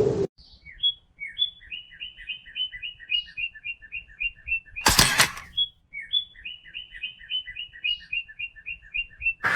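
Bird-like chirping: a few lead-in notes, then a fast run of short paired chirps, about five a second, heard twice in the same pattern. A brief loud noise burst comes just before the second run.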